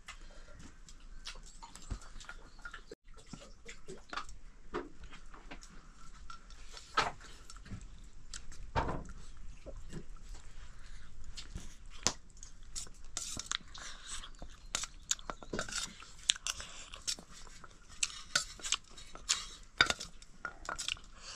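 Someone eating noodles: irregular chewing and smacking sounds with many short clicks scattered throughout.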